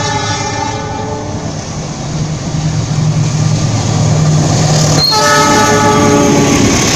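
GE CC206 diesel-electric locomotive hauling a passenger train by: its air horn sounds a multi-tone chord that fades about a second in, then sounds again for under two seconds about five seconds in. Between the blasts the diesel engine drones as it nears, and wheel-on-rail noise grows louder as the locomotive and coaches pass.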